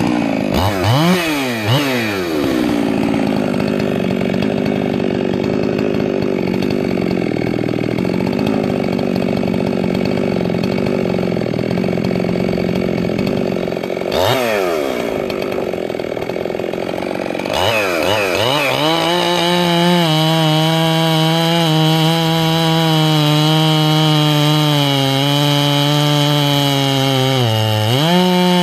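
Stihl MS441 two-stroke chainsaw with a 52 mm big-bore Caber cylinder, now broken in, and a 28-inch bar, cutting a large oak log under load. It revs up at the start and holds a steady pitch through the cut. Around the middle it revs briefly, then settles at a lower, steady pitch deeper in the wood, with a short dip and recovery near the end.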